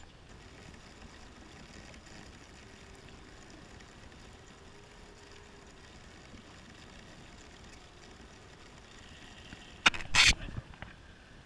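Faint steady background hiss on an open boat, then two loud knocks in quick succession about ten seconds in, from a crab hoop net being handled on the boat deck.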